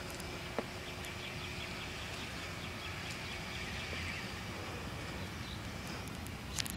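Outdoor ambience: a steady low background noise with faint, quick, high chirping calls around the middle. A light click comes about half a second in and another near the end.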